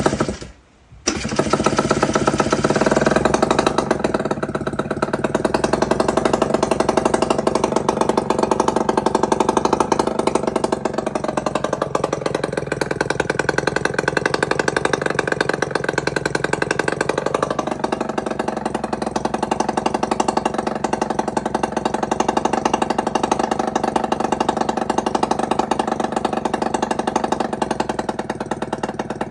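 Aprilia RS50's 50cc two-stroke engine running with its exhaust pipe removed, loud and raw, catching about a second in after a brief silence. Its speed sags a little past the middle and picks back up later, as it is held running while being diagnosed for hard starting and no idle.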